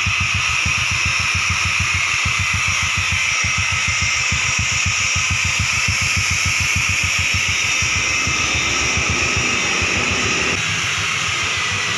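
Honda Supra X 125's single-cylinder four-stroke engine idling steadily through its stainless-steel muffler, rebuilt after the old one rusted through. The exhaust pulses are even, and the sound gets a little quieter near the end.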